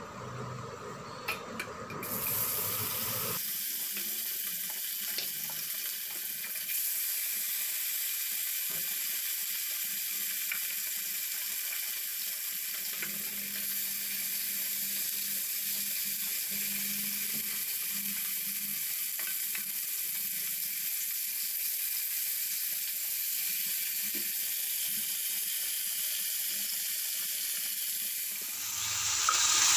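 Pieces of fish sizzling steadily as they fry in hot mustard oil in a kadai. The sizzle grows louder near the end.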